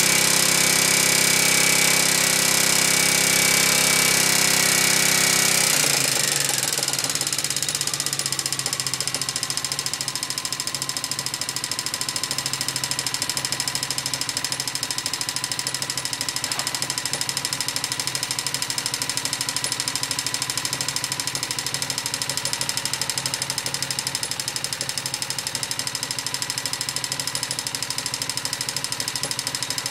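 Honda XLV 750's air-cooled V-twin engine running, heard close to the front cylinder. It holds raised revs for about six seconds, then drops back and settles into a steady idle. A clattering tick runs through it, the engine noise (cliquetis) from the front cylinder that the owner is investigating.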